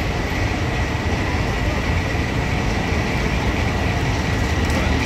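Steady low rumble of street traffic, with a thin, steady, high-pitched whine over it.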